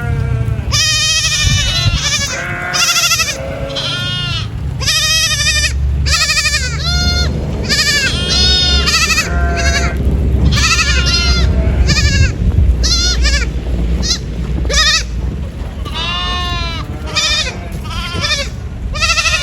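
Several goats bleating again and again, their calls overlapping, each a short quavering cry. A low steady rumble runs underneath.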